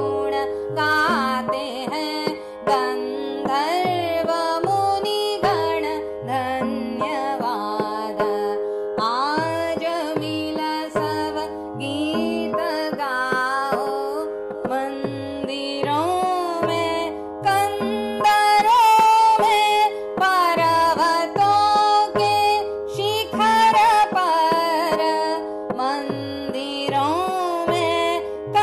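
Indian classical instrumental music: a plucked string melody with sliding pitch bends over a steady drone, with tabla strokes whose low notes slide downward.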